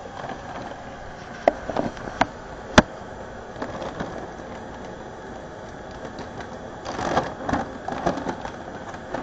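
Handling noise on a kitchen counter: a few sharp clicks and knocks in the first three seconds, the loudest near the three-second mark, then a burst of rustling and clatter about seven seconds in.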